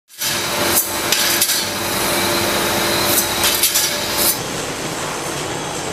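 Steel circular saw blades clinking against each other and a steel wire-mesh basket as they are handled. Several sharp metal clinks come in two groups, around a second in and between three and four and a half seconds in, over steady background noise.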